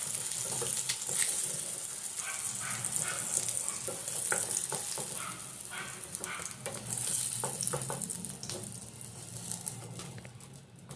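Hard-boiled eggs frying in hot oil in a kadai, sizzling steadily, with scattered clicks and scrapes of a spatula against the pan as the fried eggs are lifted out. The sizzle fades towards the end and cuts off suddenly.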